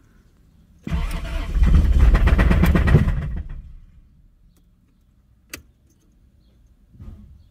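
1987 Toyota Supra's 7M-GE inline-six cranking and catching on a shot of starter fluid, running roughly in rapid even pulses for about two and a half seconds and then dying out. The engine runs only on the starter fluid, as the fuel in the tank has gelled. A single sharp click follows a couple of seconds later.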